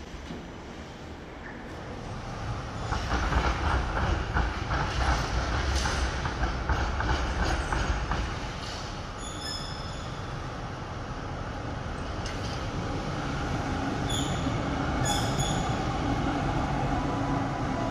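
Trams rolling along street track. One passes with wheels clattering over the rails, loudest from about three to eight seconds in. Another draws close later, with a few short, high-pitched wheel squeals.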